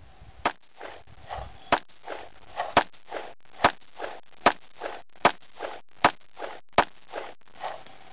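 Smith & Wesson-built 1911 pistol firing 230-grain smokeless loads: eight shots at a steady pace, about one every 0.8 s, each followed by a fainter echo.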